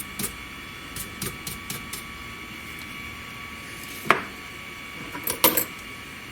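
Small 3018 desktop CNC router running a cut, its spindle motor giving a steady high whine, with light ticking in the first couple of seconds. A sharp knock comes about four seconds in and a short clatter of knocks about a second later.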